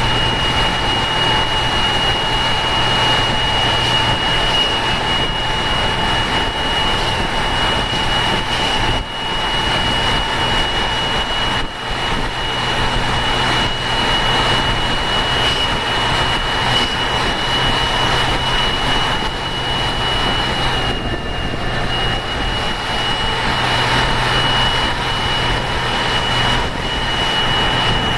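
Ashok Leyland turbo-intercooled diesel bus engine pulling uphill, a steady high-pitched turbo whistle over the engine's drone. The sound dips briefly twice, about nine and twelve seconds in.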